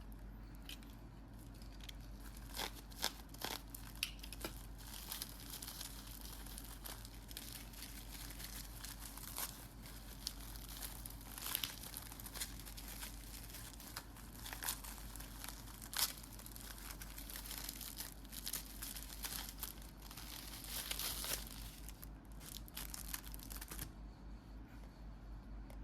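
Plastic packaging crinkling and tearing as it is unwrapped by hand, with many sharp crackles that stop a couple of seconds before the end. A low steady hum runs underneath.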